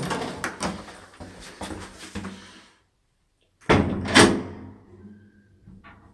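Lift door clattering in the first seconds, then after a short break a loud double clunk of the lift door about four seconds in, with a faint short tone just after.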